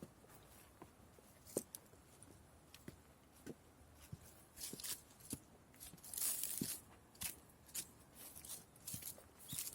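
Faint, irregular scuffs and small clicks, coming more often, about two a second, in the second half, like footsteps.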